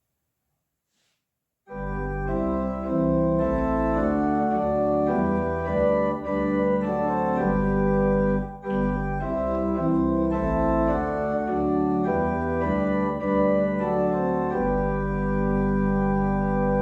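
Organ playing slow sustained chords over a deep bass line, starting sharply about two seconds in after near silence, with a short break between phrases around the middle.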